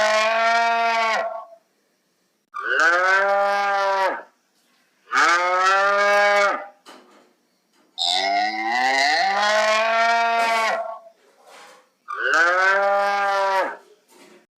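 A cow mooing over and over: five drawn-out moos of one to three seconds each, with short silences between them.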